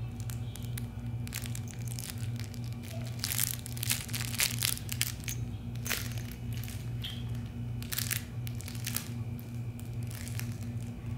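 Puppy chewing and tugging a plush toy on a fabric dog bed: irregular rustling and crinkling crackles, busiest in the middle, over a steady low hum.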